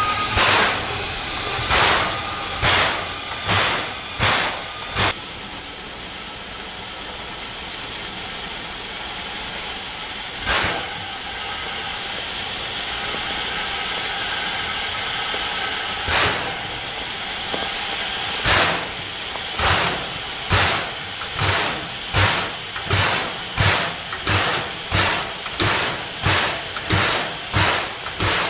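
The steam-driven air compressor (air pump) of a C11 steam locomotive working over a steady hiss of steam. Its exhaust puffs come a few at a time at first and are far apart in the middle. From about two-thirds of the way in they settle into a regular beat of a little over one a second.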